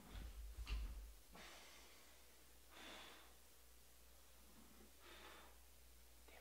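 A few low thumps, then a person's breathing close to the microphone: three soft breaths about every two seconds, two with a faint whistle.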